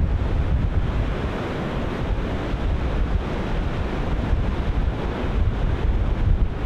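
Ocean surf breaking and washing in a steady roar, with wind buffeting the microphone in a low rumble.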